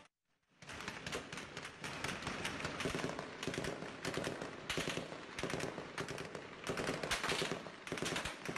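Heavy automatic gunfire: many rifle shots fired in rapid, overlapping bursts, starting about half a second in and going on without a break.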